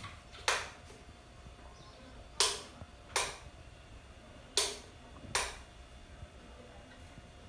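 Wall light switch clicking five times, flicked on and off in two quick pairs to test a just-repaired LED ceiling light.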